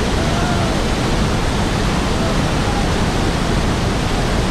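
Steady, loud rush of Niagara Falls water crashing down close by, an even noise with no let-up.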